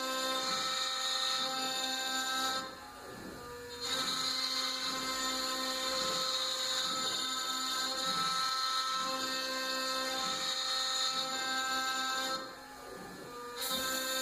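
Tatatronic TT1210 Rhino CNC router spindle running with a steady high whine while machining. The sound drops away briefly twice, about ten seconds apart, then comes back.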